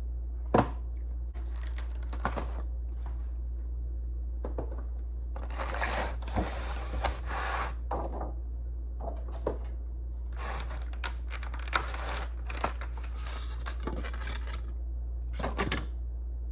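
Handling noises from unpacking a boxed HO scale model locomotive. There is a sharp click about half a second in, then stretches of rustling, crinkling packaging with light taps and scrapes, over a steady low hum.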